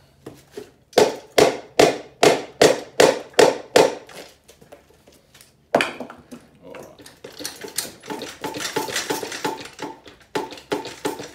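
Rubber mallet knocking on a small outboard's power head about eight times in quick succession, roughly two to three blows a second, to break a stuck base gasket. One more blow follows, then rattling and scraping as the power head is rocked loose by hand.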